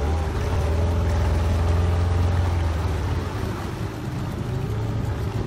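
Small boat's outboard motor running steadily, its pitch wavering a little, easing off about three seconds in, over the wash of water and wind.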